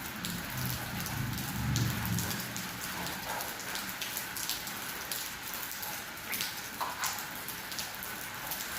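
Steady rain falling, with individual drops tapping sharply on a surface. A low rumble sits under the rain for the first two seconds or so.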